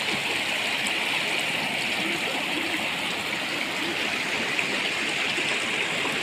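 Water rushing over the stones of a rocky mountain river, a steady hiss.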